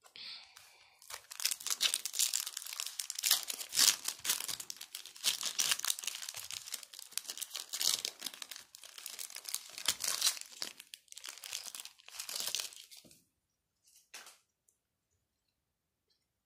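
Foil booster pack of Match Attax trading cards being torn open and its wrapper crinkled by hand, in uneven crackling spurts for about twelve seconds, with one short rustle near the end.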